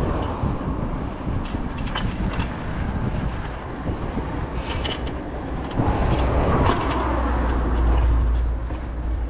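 Wind rushing over a handlebar-mounted camera's microphone, with road and tyre noise, as a mountain bike is ridden along a street. There are a few brief rattles, and the low wind rumble grows louder about six seconds in.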